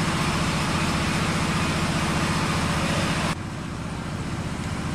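An engine running steadily with an even low pulse, under outdoor hiss. The whole sound drops abruptly in level a little over three seconds in.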